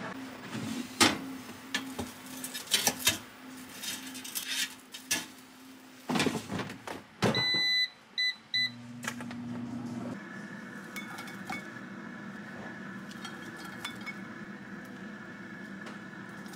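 Kitchen handling sounds: several sharp clicks and knocks over a low steady hum, then a countertop appliance's touch buttons beeping, one longer beep and two short ones, about seven to eight seconds in. After that a steady, even running sound begins and lasts to the end.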